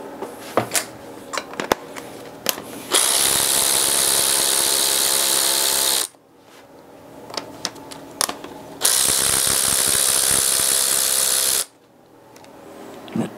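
Cordless power ratchet running in two steady bursts of about three seconds each, backing bolts out of an engine's cylinder head. Short metallic clicks and clinks from handling the tool and parts come before, between and after the bursts.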